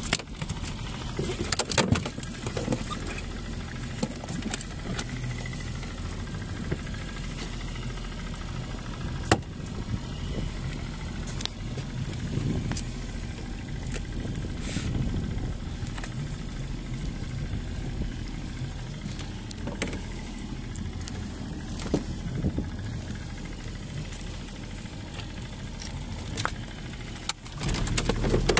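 Boat engine idling steadily, with occasional sharp knocks and clicks from handling on deck.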